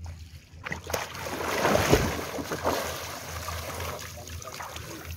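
Sea water splashing and sloshing as people wade through it, loudest about two seconds in, with a low rumble of wind on the microphone.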